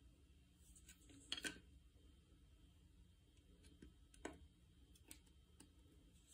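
Near silence with a few faint clicks and rubs of a nylon starter rope being handled on a workbench and drawn over the rim of a steel bowl, the loudest about one and a half seconds in.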